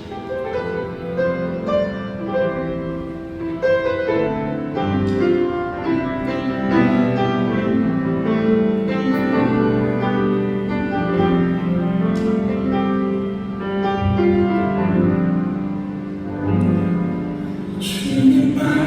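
Instrumental music with sustained, overlapping notes.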